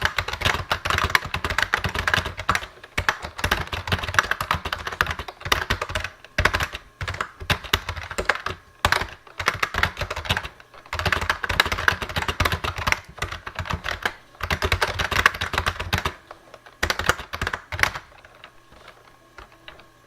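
Typing on a Lexmark-made IBM Model M style keyboard with rubber dome keys: fast runs of keystroke clacks in bursts with short pauses between them, stopping about two seconds before the end.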